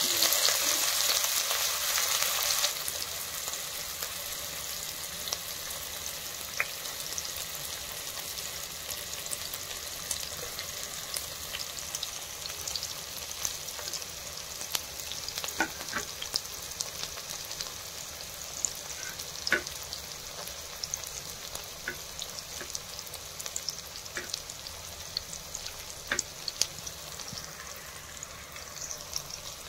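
Sliced red onions frying in hot oil in a kadai: a loud sizzle for the first two to three seconds that settles into a steady, quieter sizzle with scattered pops and crackles.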